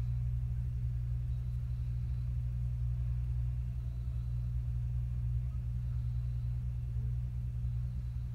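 Steady low mechanical hum from work going on outside, running unchanged without any rise or fall.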